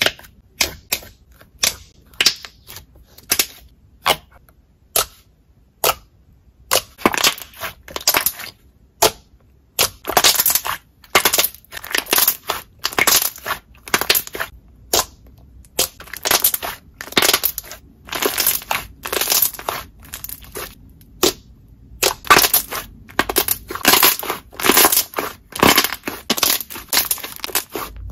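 Green slime squeezed and pressed by hand, crackling and popping: sharp single pops about twice a second at first, then from a few seconds in longer crackly squishes of about a second each.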